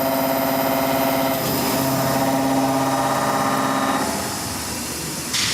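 Milling spindle of a Kinetic K4000 CNC table running while milling, a steady machine whine of several tones whose pitch shifts about a second and a half in and eases off around four seconds in. A brief sharper noise comes right at the end.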